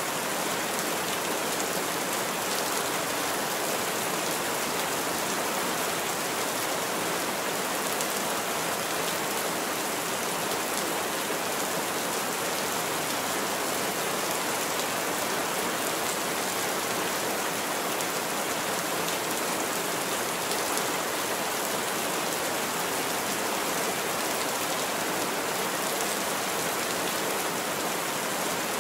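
Steady rain falling, an even, unchanging wash of noise with no thunderclaps or gusts standing out.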